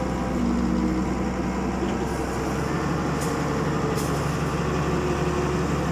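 Isuzu 6BG1 inline-six diesel engine of a forklift running steadily, with a few faint clicks about three and four seconds in. The engine has been starting and then dying, which the mechanic puts down to air in the fuel after it ran short of diesel.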